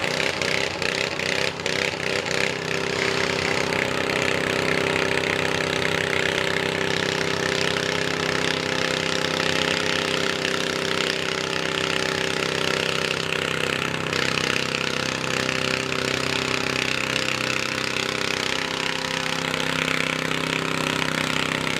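John Deere garden tractor engine running steadily under load as it pulls a weight-transfer sled, its pitch holding nearly constant.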